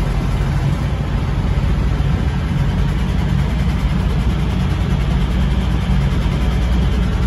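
A truck's diesel engine idling steadily: an even, low hum that does not change.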